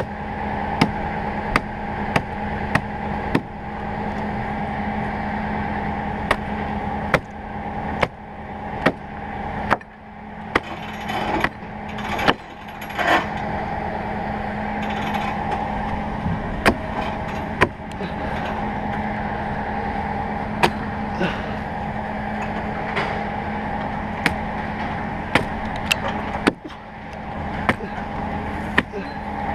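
A heavy diesel truck engine running steadily, with a series of sharp knocks and clacks at irregular intervals, closest together around the middle.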